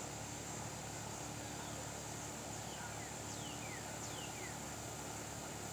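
Steady hiss with a few short, high whistled calls from a bird, each falling in pitch, three or four of them in the second half.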